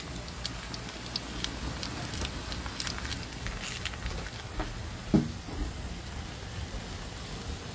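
Lamb in barbecue sauce sizzling on a charcoal grill: a steady hiss with scattered crackles and pops from the coals.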